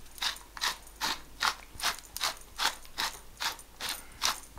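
Pepper mill being twisted to grind black peppercorns, a steady ratcheting grind about two and a half strokes a second.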